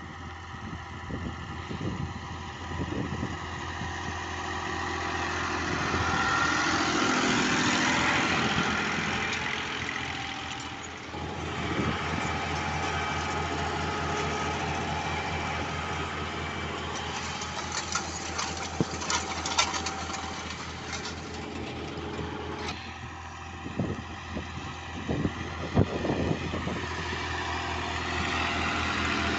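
Diesel tractor engine running steadily under load while pulling a seed drill, getting louder for a few seconds early in the stretch. The drill and its linkage rattle, with sharp metallic clatters and knocks in the second half.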